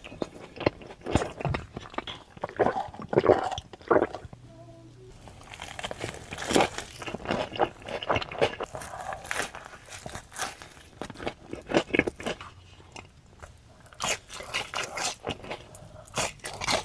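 Close-miked eating of a crunchy food: bites and chewing crunches in irregular bursts, with a short quieter lull about four seconds in.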